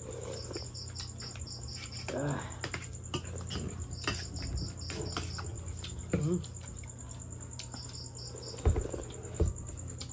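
Insects chirping steadily, with short runs of quick high pulses a few times, over small clinks and scrapes of spoons and forks on plates and a soup bowl. Two dull thumps come near the end.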